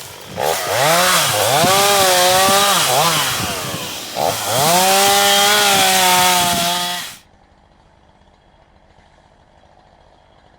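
Two-stroke chainsaw being revved, its engine pitch swinging up and down several times, then held high before cutting off suddenly about seven seconds in.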